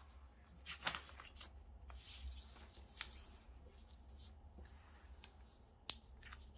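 A sheet of paper being folded and pressed flat by hand: faint, intermittent rustles and crinkles, with a sharper crackle near the end.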